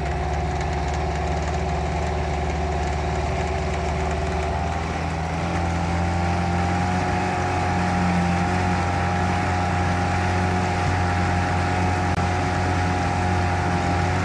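Small boat's motor running steadily underway, picking up a little speed and getting slightly louder about five seconds in.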